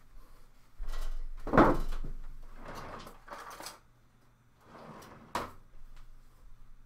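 Kitchen drawer being opened with rummaging and clatter, then a sharp knock about five seconds in as it is pushed shut.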